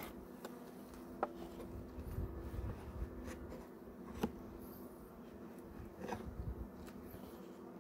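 Metal hive tool scraping wax and propolis off the wooden top bars of beehive frames: a faint dry rasping with a few light clicks.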